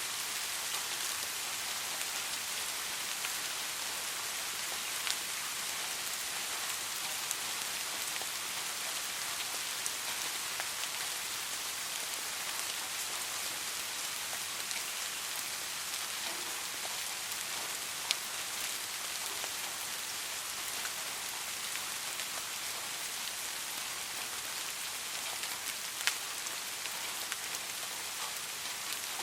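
Soft rain falling steadily, an even high hiss with a few louder single drops standing out now and then.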